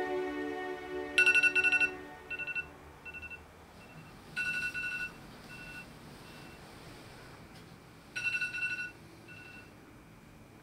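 Smartphone sounding an electronic chime in three repeated bursts, roughly every three to four seconds, each a short trill followed by fainter echoing beeps. Background music fades out in the first couple of seconds.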